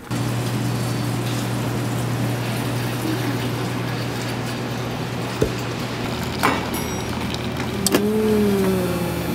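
A steady low mechanical hum with a few light clicks, and near the end a short wavering tone.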